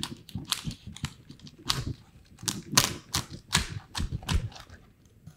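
Heavy cleaver chopping through a spiny lobster's hard shell on a wooden cutting board: a quick, irregular run of sharp cracks and knocks, about a dozen strikes, that stops just before the end.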